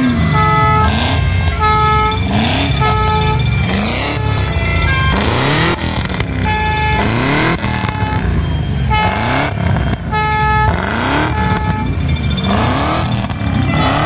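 Two V8 engines, a classic Range Rover through a long straight exhaust pipe and a Corvette, revved over and over, the engine note rising again and again about once a second. Car horns toot on and off over the revving.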